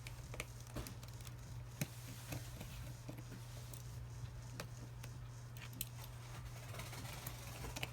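Small tools and phone parts being handled on a workbench: scattered light clicks and ticks, over a steady low electrical hum.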